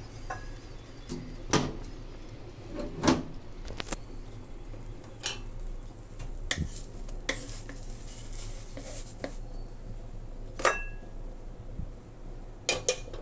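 Clinks and knocks of a utensil on a non-stick frying pan and a ceramic plate as a cooked banana pancake is moved from the pan to the plate: about half a dozen sharp, separate strikes, one ringing briefly.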